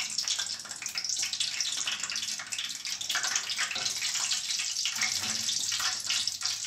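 Frying oil in an aluminium pan fizzing and crackling around a small test piece of dough: a steady hiss with scattered crackles, the oil not yet hot enough for frying.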